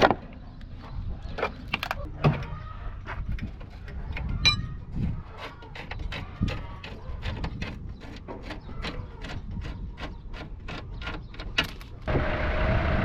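A run of sharp mechanical clicks and taps, settling into about three a second in the second half. About a second before the end a steady machine or engine noise with one held tone starts abruptly.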